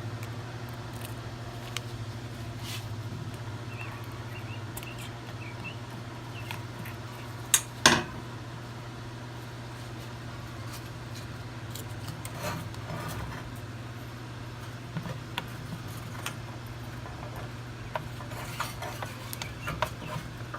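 Small metal clicks and scrapes of a screwdriver being worked back and forth to pry the oil filter cover plate out of a Yamaha V Star 1100 engine, with two loud clinks close together about eight seconds in. A steady low hum runs underneath.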